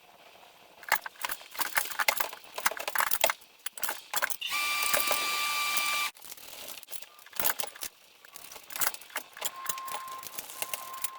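Metal tools and hardware clinking and clattering in quick irregular clicks, with a steady whirring for about a second and a half near the middle.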